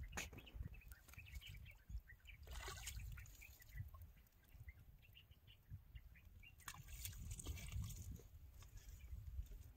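Faint water sounds at a muddy pond's edge, with two brief splashy bursts, a low uneven rumble underneath and scattered faint chirps.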